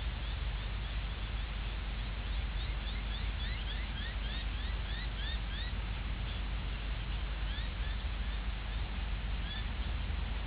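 A bird chirping: a rapid series of short high chirps, about three a second for several seconds, then a few scattered chirps near the end. Under them are a steady hiss and a low hum.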